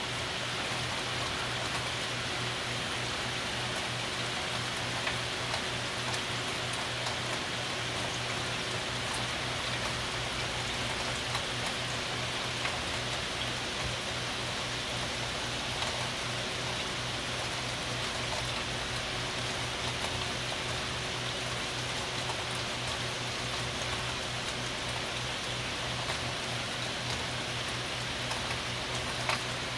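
Steady heavy rain from a big rain storm, with scattered drops ticking close by.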